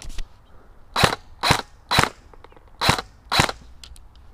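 Classic Army Scarab airsoft electric rifle firing six single shots, spaced about half a second to a second apart.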